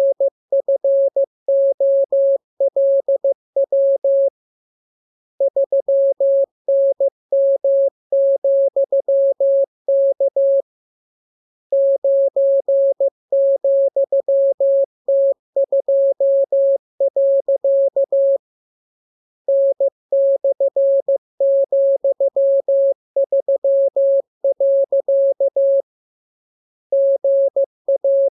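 Morse code practice sent as a single pure tone of about 600 Hz, keyed in quick dots and dashes. The characters come in runs of several seconds, broken by pauses of about a second.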